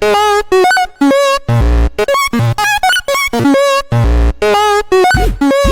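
Choppy electronic meme music: short pitched stabs with a wavering tone, cut off abruptly several times a second, over heavy bass hits, with quick up-and-down pitch sweeps near the end.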